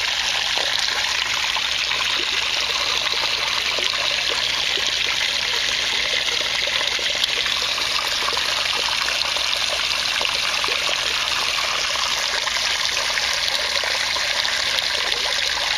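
Steady stream of water pouring and splashing into a glass aquarium tank as it fills to the brim.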